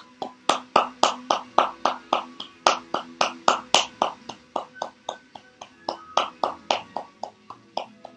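A man clapping his hands at a steady pace, about four claps a second, louder for the first few seconds and then softer.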